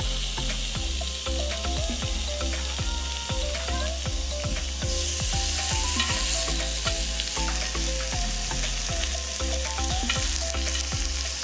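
Raw pork belly slices sizzling on a hot round grill plate, the frying hiss growing louder about halfway through as a second slice goes on. Background music with a steady beat and bass plays under it.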